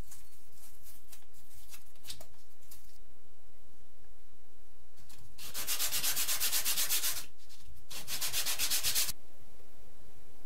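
Hand sanding of wood: sandpaper rubbed rapidly back and forth, about six strokes a second, in two short bursts in the second half, after a few faint scrapes.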